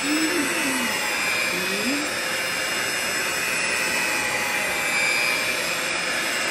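Electric hand mixer running steadily, its beaters whipping thick batter in a bowl.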